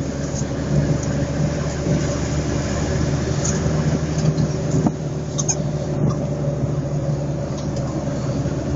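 Vehicle engine running steadily at road speed with tyre and wind noise, heard from inside the cab. A couple of light clicks come about five seconds in.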